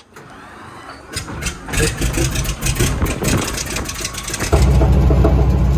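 A piston aircraft engine being cranked over with a run of sharp clicks and pops, then catching about four and a half seconds in and running loudly and steadily.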